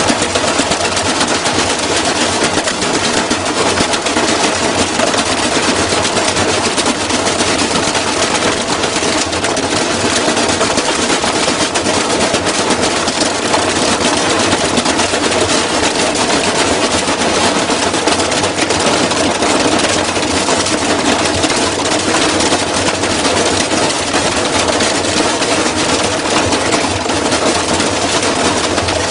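Washing machine spinning hard and shaking itself apart, a dense, rapid clatter of knocks and rattles over a steady motor tone.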